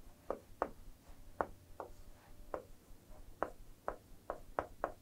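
Stylus tapping and clicking on an interactive whiteboard screen as words are written by hand, about ten short sharp taps at an irregular pace.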